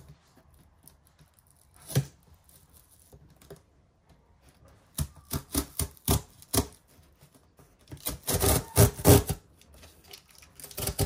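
Corrugated cardboard box being torn open along its tear strip: one knock on the box about two seconds in, then quick runs of short ripping tears from about halfway on, loudest a little past the middle.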